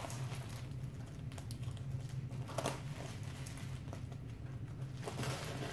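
Scissors cutting through packing tape and bubble wrap, with occasional sharp snips and plastic crinkling over a steady low hum.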